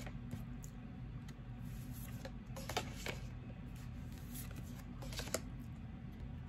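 Oracle cards being handled and swapped one after another: a few soft, scattered taps and slides of card stock over a steady low hum.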